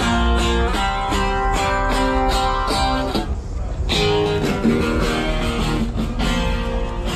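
Guitar music, chords strummed in a steady rhythm, with a short break just after three seconds in.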